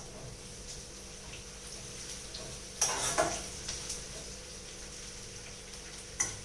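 Chopped onions frying in hot oil in a pot with a steady sizzle. A spatula scrapes and knocks against the pot about three seconds in, and there is a single knock near the end.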